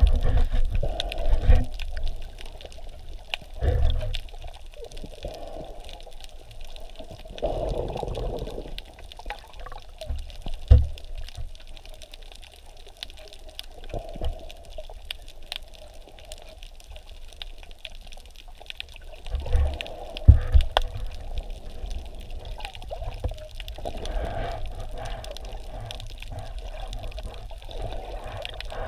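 Water heard underwater by a submerged camera: muffled sloshing and rushing, with irregular low thumps and faint crackling clicks throughout.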